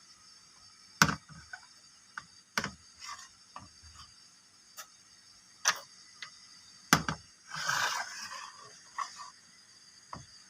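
Small plastic toy pieces clicking and knocking as they are handled and set down, several separate sharp taps, with a brief rustle about three quarters of the way through.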